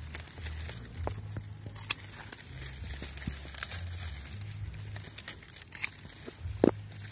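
Rustling and crackling of stiff, spiny pineapple leaves being brushed and pushed aside, with a few sharp snaps, the loudest near the end.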